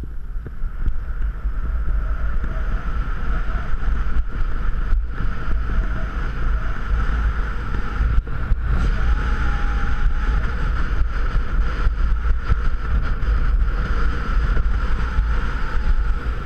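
Steady wind buffeting a helmet-mounted camera's microphone during a downhill ski run, with the steady hiss of skis sliding on packed, groomed snow.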